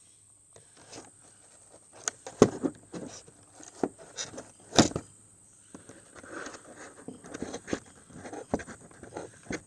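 Toy lightsaber packaging being worked open by hand with a blade: scattered sharp clicks and knocks, the two loudest about two and a half and five seconds in, then rustling and scraping over the second half.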